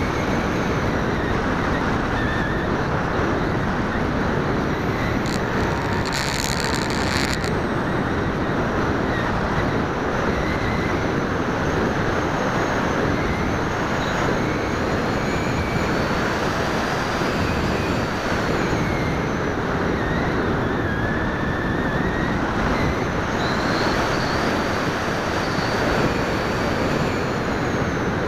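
Steady wind rush and propeller noise picked up by the onboard camera of a flying FPV model aircraft, with a faint motor whine that drifts slowly up and down in pitch. A brief burst of high hiss comes about six seconds in.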